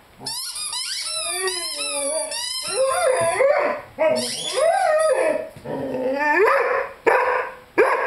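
A Rhodesian Ridgeback puppy squeaks a rubber chicken toy rapidly in his mouth for about the first three seconds while whining along, then howls in long rising-and-falling notes, with another burst of squeaks around four seconds in. Near the end the howls break into short barks about one every second or less.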